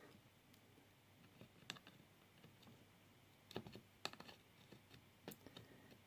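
Near silence broken by a few faint, short clicks and taps of hands handling a wire and an EC5 bullet pin held in a metal soldering block.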